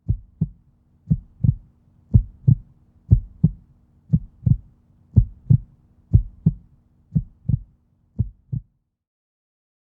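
Heartbeat sound effect: paired low thumps (lub-dub), about one beat a second, nine beats over a faint steady hum, stopping abruptly near the end.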